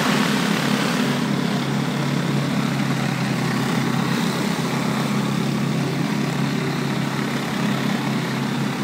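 Pressure washer running steadily: a low mechanical drone under the hiss of water from a flat surface cleaner spraying brick pavers.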